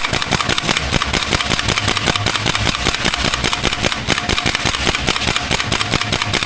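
Airsoft gun firing a long, unbroken full-auto burst: rapid sharp cracks at about ten shots a second, at an even rate.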